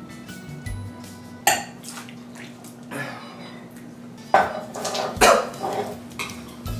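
Background music under a young man coughing and gagging in sudden loud fits: once about a second and a half in, again at about three seconds, and in a longer run from about four and a half seconds, after swallowing the gross mixture.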